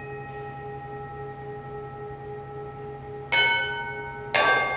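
A small glass bowl struck with a stick and left to ring. A ring from an earlier strike carries into the start, then the bowl is struck twice, about a second apart, near the end, each time ringing brightly and slowly fading.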